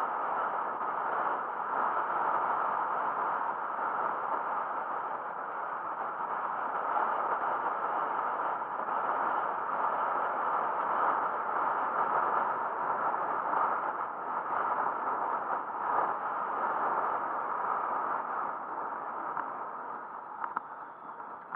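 Steady rush of wind and tyre noise picked up by a camera mounted on a moving road bike, easing a little near the end.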